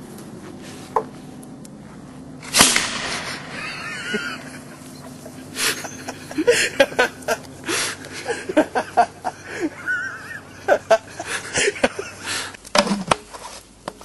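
Homemade hairspray-fuelled PVC potato cannon firing once: a single loud bang about two and a half seconds in that dies away over about a second. Scattered short knocks and clicks follow.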